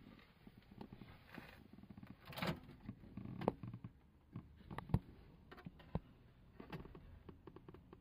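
Handling sounds at a Makita cordless microwave: its door opened and a hot plastic food container slid out once heating is done, a string of light clicks and knocks, the loudest about five seconds in.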